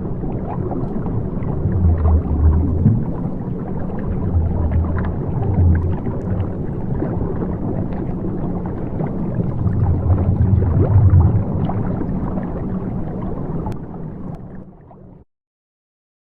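Water bubbling and gurgling: many small pops over a low rumble that swells three times. It fades and cuts off about a second before the end.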